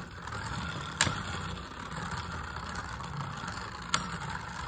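Two Beyblade Burst spinning tops, Spryzen and Valtriac, whirring steadily as they spin on the floor of a plastic stadium. Two sharp clacks of impact come about a second in and about four seconds in, as the tops make contact.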